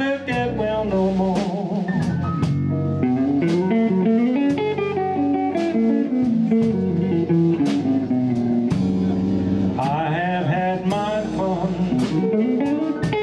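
Live blues band playing an instrumental passage: a melodic lead line bending in pitch over bass and a steady drum beat, with guitar to the fore.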